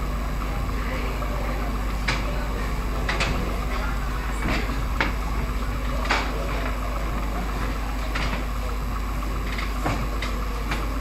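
Scattered sharp clicks of high-heeled shoes on the stage floor as singers walk into place, irregular and about a dozen in all, over a steady hum of room noise.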